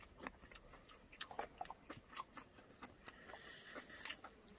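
Faint mouth sounds of people eating ramen noodles: chewing with many small wet clicks and lip smacks, and a hissy slurp of noodles near the end.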